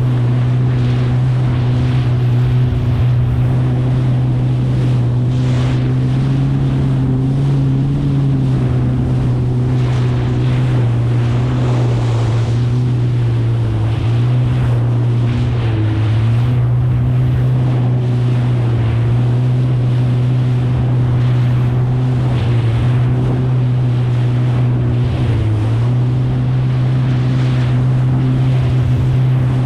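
2023 Kawasaki STX 160 jet ski's four-cylinder four-stroke engine running at a steady cruising pace through choppy water, its pitch dipping briefly a few times. Wind buffets the microphone, and water and spray wash and slap against the hull throughout.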